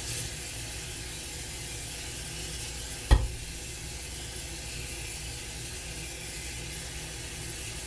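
Kitchen tap running into a bowl of raisins in a stainless-steel sink, a steady hiss of water as the bowl fills for another rinse. A single sharp knock about three seconds in.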